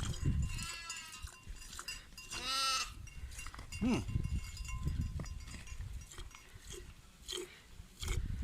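Sheep bleating, a few separate calls, over a low rumbling background.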